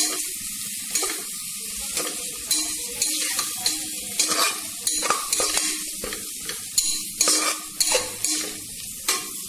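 Spiced onion-and-tomato masala sizzling in hot oil in a pressure cooker, with a spatula stirring and scraping against the pot bottom in irregular clicks.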